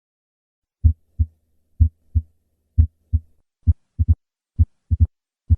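Heart sounds as heard through a stethoscope, beating about once a second. There are three normal lub-dub beats, and from about four seconds in each beat gains an extra short, sharp click very soon after the second heart sound. That click is the opening snap of mitral stenosis, caused by the thickened mitral valve.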